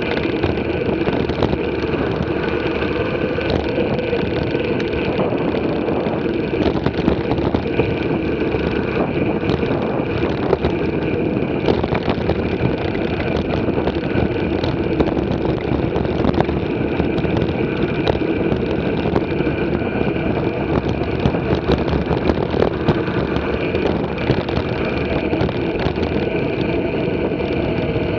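Mountain bike rolling along a dirt and gravel track: a steady rumble of tyres on the loose surface and air rushing past, with frequent small clicks and knocks from the bumps.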